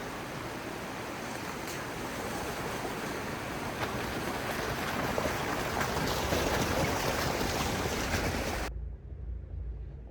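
Rushing mountain creek water, a steady loud hiss of runoff that swells louder midway. About nine seconds in it cuts off sharply, leaving a low steady engine hum.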